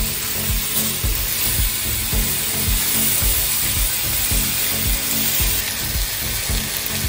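Chicken breast fillets sizzling in a hot ridged grill pan as they are brushed with a honey and soy sauce glaze, a steady hiss. Background music with a steady low beat runs underneath.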